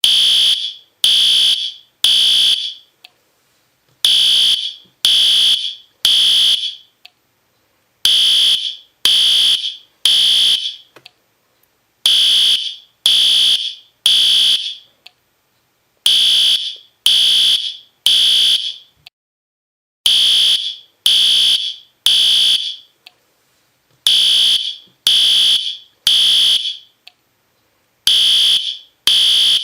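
System Sensor P2R fire alarm horn sounding the temporal-three evacuation pattern: three loud, short horn blasts, then a pause of about a second and a half, repeating every four seconds.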